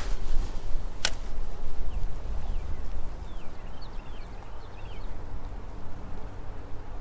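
Wind rumbling and buffeting on the microphone outdoors, with one sharp click about a second in and a bird giving a few short, falling chirps around the middle.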